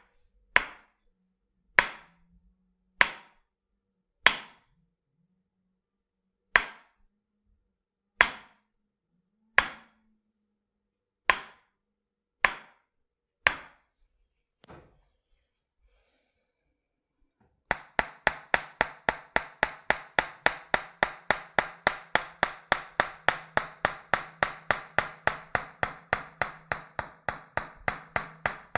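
Tok sen massage: a wooden hammer striking the body in sharp, single taps about every second or two, then, after a short pause, a fast even tapping of about four strikes a second.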